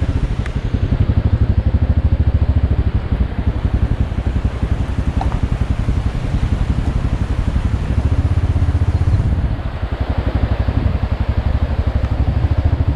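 Motorcycle engine running steadily under way, with rapid even exhaust pulses and a brief dip in level about nine seconds in.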